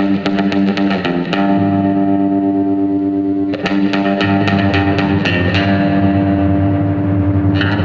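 Background music: distorted electric guitar playing fast, evenly picked notes over a held bass line.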